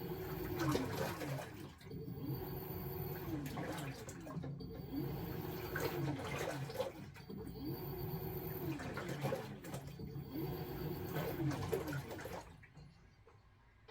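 LG top-loading washing machine agitating a load in water: the pulsator motor whines up, holds, and winds down about every two and a half seconds as it swings back and forth, with water churning and sloshing. About five swings, then the agitation stops near the end.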